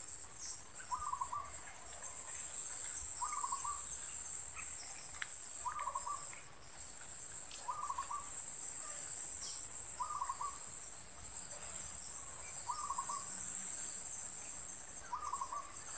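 Shrill, steady drone of insects, slightly pulsing, with a short trilled animal call repeating about every two seconds.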